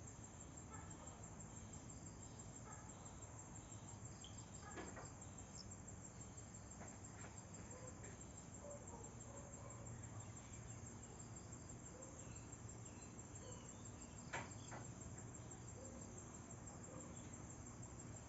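Faint, steady chirping of insects. A brief click comes about five seconds in, and a louder one near fourteen seconds.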